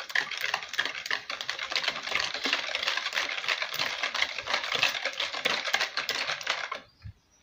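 Wire whisk beating eggs and sugar in a plastic bowl: a fast, continuous clatter of wires clicking against the bowl, stopping abruptly near the end.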